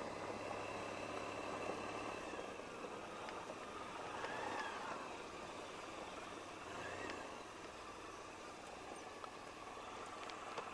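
Low, faint idling engine hum that stops about two seconds in, leaving a quiet outdoor background with a couple of soft high chirps.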